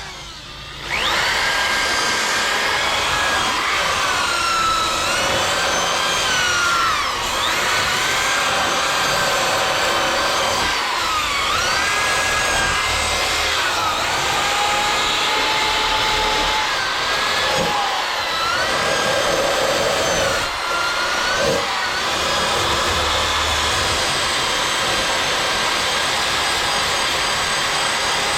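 Drill spinning a small wire wheel brush against sheet steel, stripping seam sealer. The motor starts about a second in and runs steadily, its whine dipping in pitch each time the brush is pressed into the work and recovering as it eases off.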